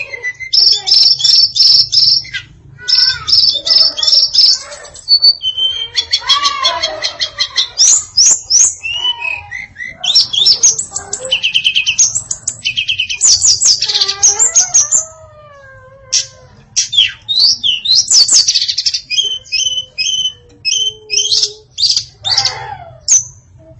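Female tledekan singing a varied song of quick, dense phrases of high chirps and rapid trills, mixed with a few lower falling whistles, broken by a short pause about two-thirds of the way through.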